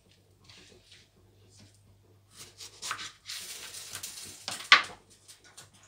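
A kitchen knife, not as sharp as it might be, sawing through a tomato on a plastic cutting board: faint scraping at first, a rasping cut of about a second, then one sharp knock of the blade on the board near the end. A low steady hum runs underneath.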